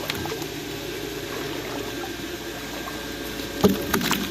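Steady churning water with a low hum from a pump working a fish pond. A few sharp sounds come near the end, the loudest about three and a half seconds in.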